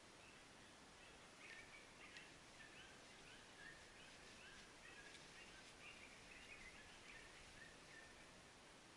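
Near silence in woodland, with many faint, short high-pitched calls repeating irregularly through most of the stretch.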